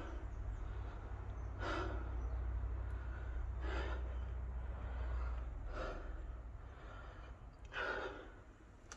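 A man breathing audibly close to the microphone, a breath about every two seconds, over a low steady rumble.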